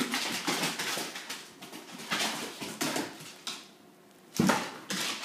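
A puppy scrabbling during rough play, its claws clicking and skittering on a hardwood floor in irregular bursts, with a louder sudden bump about four and a half seconds in.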